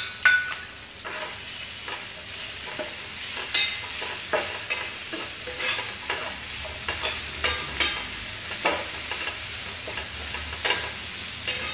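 Steel ladle stirring and scraping soaked poha (flattened rice) with fried onion, potato and peas around a nonstick frying pan, with irregular knocks of the ladle on the pan over a light sizzle.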